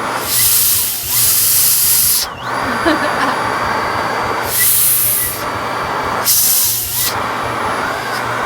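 Vacuum cleaner running with a steady motor whine while its nozzle is worked through a cat's coat to lift shed fur. Its suction hiss swells loudly three times, and the whine dips briefly after the first swell.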